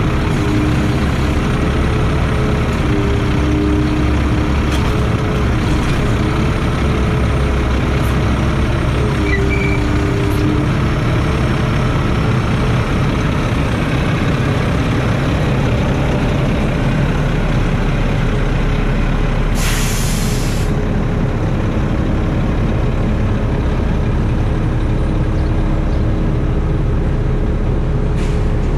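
Mack MP7 inline-six diesel engine of a garbage truck running, with a steady hydraulic whine that comes and goes as the automated side-loader arm moves. About two-thirds of the way through, a loud, sharp hiss of compressed air is released for about a second.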